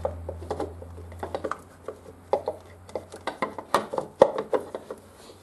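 Irregular light clicks, taps and knocks of a motorcycle's cylinder head cover being wiggled by hand against the engine and frame as it is worked loose. A low hum fades out after about a second and a half.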